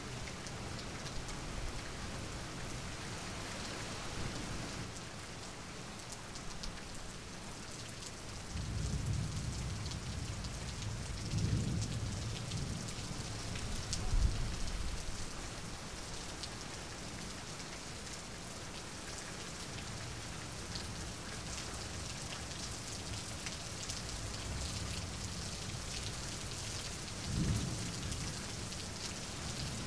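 Steady rain falling, with several low rolls of thunder, the loudest about a third of the way in and another near the end.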